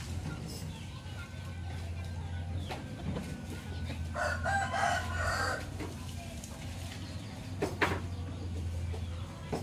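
A rooster crowing once, about four seconds in, for about a second and a half, over a steady low hum, with a couple of sharp clicks before and after.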